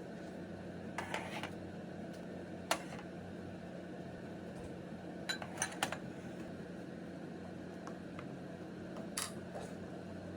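Steady low hum with a handful of short, light clinks and taps scattered through it, including a quick cluster of three about five and a half seconds in.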